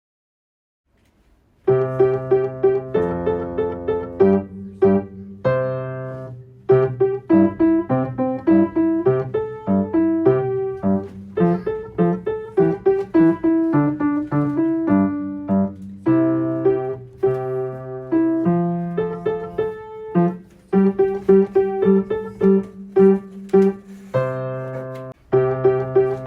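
Solo piano playing a simple children's-song accompaniment, a melody in the right hand over single bass notes in the left, starting about two seconds in after silence.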